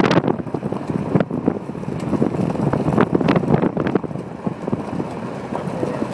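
A vehicle driving over a rough dirt road, with steady engine and tyre noise, wind buffeting the microphone, and irregular knocks and rattles as it goes over bumps.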